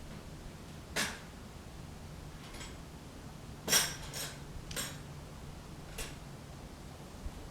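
A few light metallic clinks and knocks at uneven intervals, the loudest a little before halfway, over a faint steady low hum.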